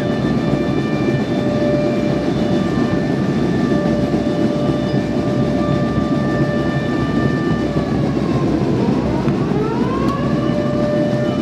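A loud sustained siren-like tone held on one pitch over a dense steady rumble. About eight seconds in, it sags in pitch and then rises back to the same note.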